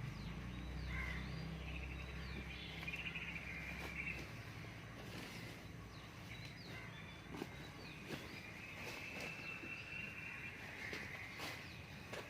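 Small birds chirping and trilling outdoors, with scattered sharp clicks and scrapes. A low hum underneath stops about four seconds in.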